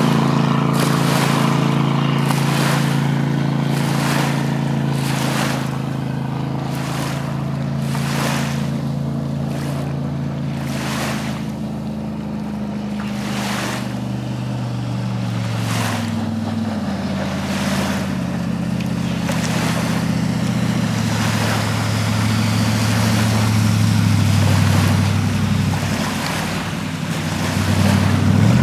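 Jet boat's inboard engine running at speed, its pitch falling and rising as the boat slows and speeds up, over a rushing of water with rhythmic whooshes more than once a second through the first half.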